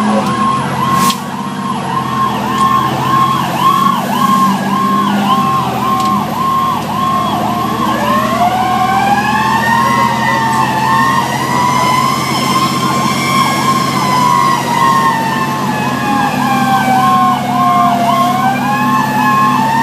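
Fire engine siren heard from inside the cab, running a fast, repeating yelp about twice a second, with a second, slower siren rising and falling in a long wail from about eight seconds in. The truck's engine hums steadily underneath.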